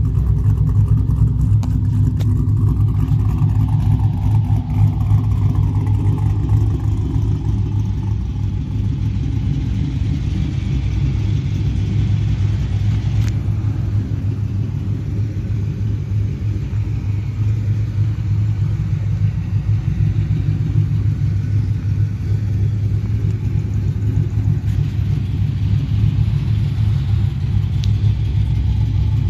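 LS1 5.7-litre V8 idling steadily through Speed Engineering 1 7/8-inch stainless long-tube headers and a 3-inch stainless true dual exhaust with quad tips: an even, low exhaust note.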